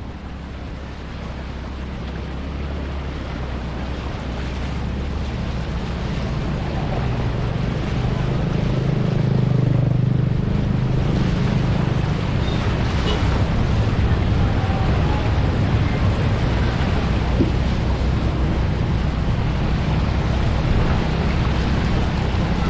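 Steady rumble of vehicles and water on a flooded road, with wind noise on the microphone. It grows louder over the first several seconds, then holds steady.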